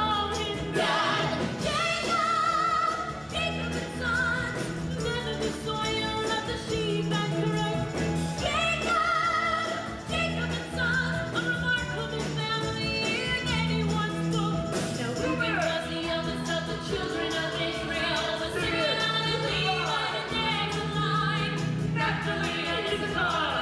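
Live musical-theatre number: a pit orchestra accompanying ensemble and choir singing.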